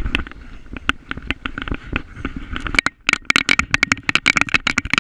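Handling noise of a GoPro camera strapped to a dog's chest harness: rapid irregular knocking, clattering and scraping as the dog twists and moves against it. The clatter grows denser after a short lull about three seconds in.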